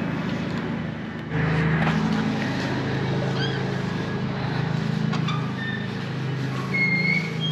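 A vehicle engine running steadily, a low hum that gets louder a little over a second in. A few short high chirps come in over it later.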